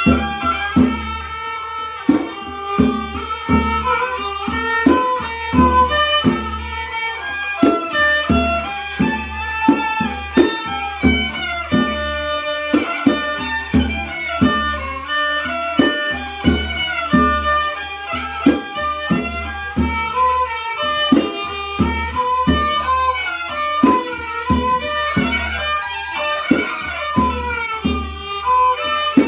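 Mahori kantrum ensemble music, the Northern Khmer folk style: a bowed fiddle plays a wavering melody over a steady hand-drum beat.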